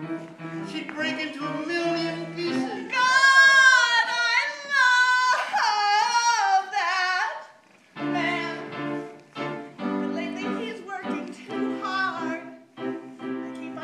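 A woman singing over musical accompaniment. A few seconds in she holds a loud, high note with vibrato for about four seconds. The music then drops out for a moment before the accompaniment and shorter sung phrases come back.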